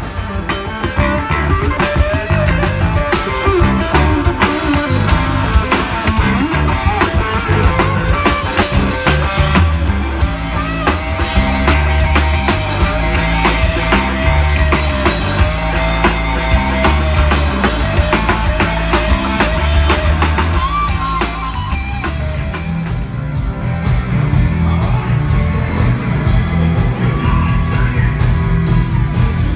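Live rock band playing: electric guitars, bass and drum kit, with a wavering lead melody over a steady beat.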